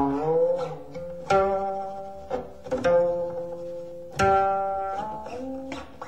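Background music on a plucked string instrument: single notes struck every second or so, each ringing and fading, a few of them bent in pitch.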